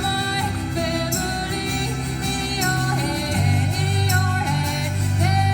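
A song playing, with a voice singing a melody over bass and drums.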